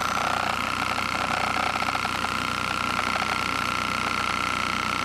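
Small piston Stirling engine driven in reverse by a high-speed electric motor at about 4,000 RPM, running steadily with a high whine. Driven this way it works as a refrigerator, pulling heat out of the displacer end.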